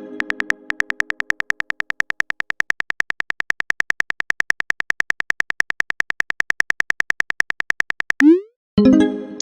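Phone keyboard typing sound effect: rapid, even clicks about nine a second, each with the same bright tick. Near the end it stops and a short rising whoosh follows, the kind of swoosh played when a text message is sent.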